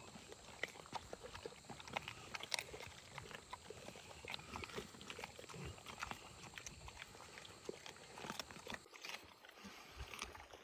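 A group of mastiff dogs and pups eating raw chicken, with faint chewing and crunching that comes as many small, irregular clicks.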